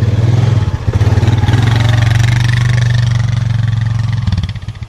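Four-wheeler (ATV) engine running close by, with even firing pulses and some revving; its sound falls away sharply about four seconds in.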